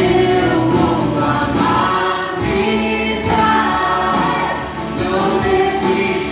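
Christian gospel song with a choir singing over a full band accompaniment.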